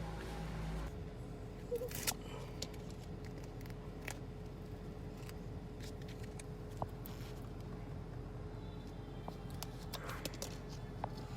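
Scattered small sharp clicks and light rustles of hands working on wiring and plastic fittings, over a steady low hum. A different hum cuts off abruptly about a second in.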